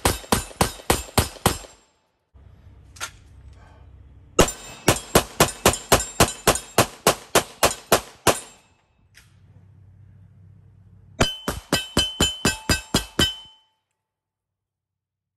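Pistol fired in three rapid strings of about four shots a second, with short pauses between. Steel targets clang as they are hit, ringing clearly through the last string.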